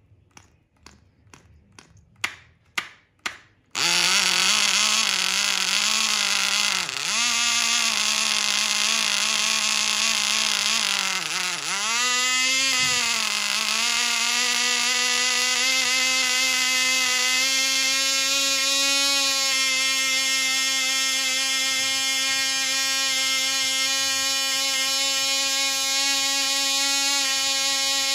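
A 0.1 cc nano model diesel engine: a series of sharp clicks, then it catches about four seconds in and runs with a high-pitched buzz. The pitch wavers and dips while the compression adjuster on top of the cylinder is worked, then settles steady and slightly higher, at just over 20,000 rpm.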